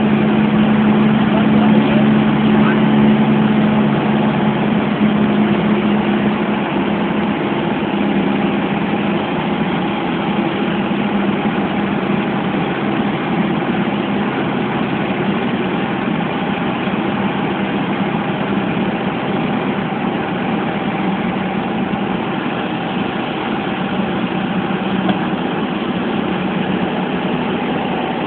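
Cabin noise of a Piper PA-28 light aircraft in flight: its piston engine and propeller drone steadily under the rush of airflow, easing slightly after several seconds.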